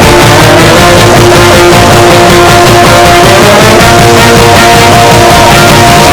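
Loud rock music led by electric guitar, with no singing, in an instrumental passage.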